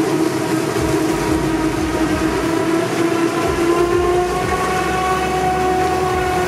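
Background music: a sustained, droning chord that slowly rises in pitch and steps up about two-thirds of the way through.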